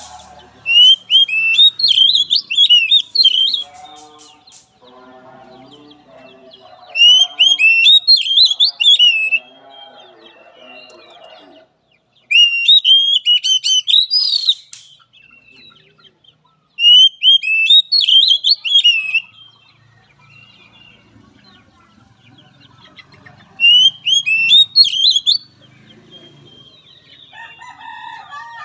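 Oriental magpie-robin singing in five loud bursts of rapid, high whistled notes, each two to three seconds long, with pauses between. Fainter, lower-pitched calls sound in the gaps between the first few bursts.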